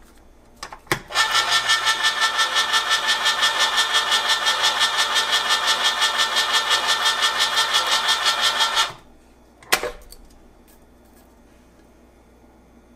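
Hamilton Beach Smooth Touch electric can opener running as it turns a can and cuts along its seam: a steady motor-and-gear hum with a fast, even pulse for about eight seconds, then it stops abruptly. A click comes just before it starts and another about a second after it stops.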